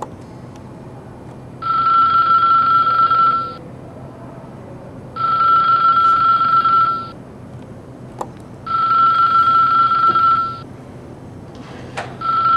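Telephone ringing: three rings of about two seconds each, a steady high tone with a buzzy upper edge, and a fourth ring cut off just after it starts near the end. A faint click between the second and third rings.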